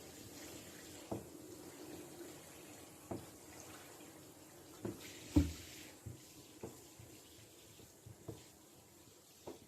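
Shower water running, with scattered soft knocks throughout; the loudest knock comes about five and a half seconds in.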